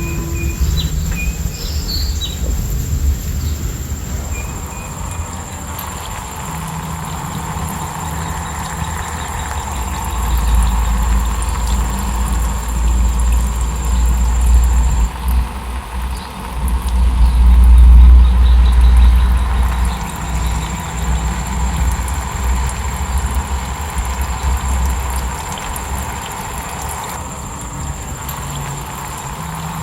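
Nature ambience: a loud deep rumble that swells around the middle, under a steady high cricket trill that drops out for a few seconds around halfway, with a few bird chirps in the first couple of seconds.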